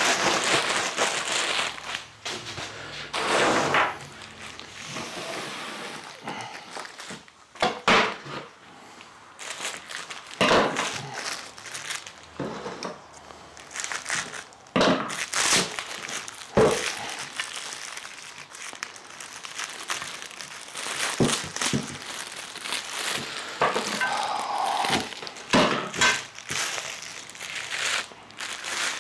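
Plastic packaging wrap crinkling and rustling as steel stand parts are unwrapped by hand, with irregular thunks and knocks as the parts are handled and set down on a wooden bench.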